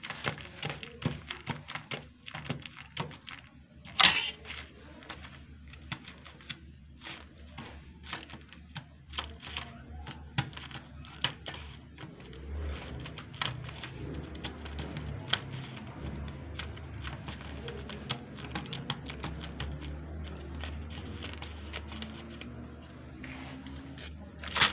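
Metal spoon scraping and crunching freezer frost, packing it into a small plastic cup: a rapid run of short crisp crunches and scrapes, with a sharp knock about four seconds in. About halfway through the crunching gives way to a softer steady rubbing as the frost is pressed down by hand, and a loud knock near the end as the cup is tipped over to turn out the packed frost.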